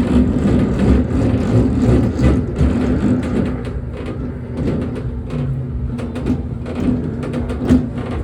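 1990s Jolly Roger bulldozer kiddie ride running, giving a steady engine-like rumble with scattered clicks and knocks and one sharper knock near the end.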